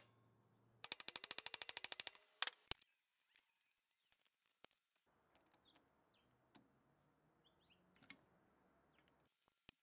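Metal clatter from dismantling an old electric motor: a fast rattle of sharp metallic clicks lasting about a second, then two sharp metal knocks, then light clinks and ticks as the end bell and tools are handled.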